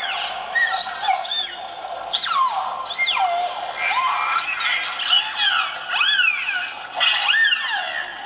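Several dogs yelping and whining together, many high-pitched calls overlapping, each rising and falling.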